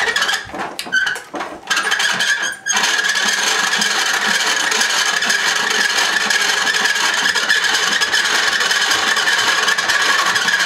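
Hand-cranked pasta machine's spaghetti cutter squeaking pretty bad as it is cranked: a few short squeaks, then from about three seconds in a continuous loud squeak. A little oil has not cured it, and the squeak is thought to come from the cutter wheels themselves.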